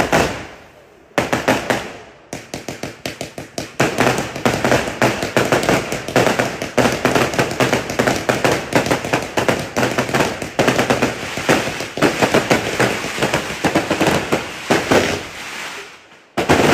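Machine-gun firecracker ('mercun machine gun') firing a long rapid volley of sharp bangs, several a second. It starts about a second in, slackens briefly, then runs almost without a break. A final loud burst comes right at the end.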